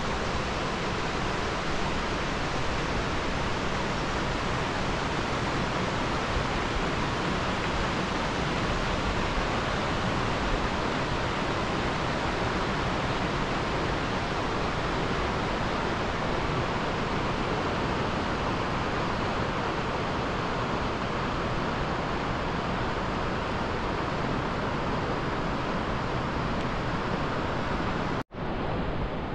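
A steady rushing noise, like wind or running water, that breaks off for an instant near the end and comes back a little quieter.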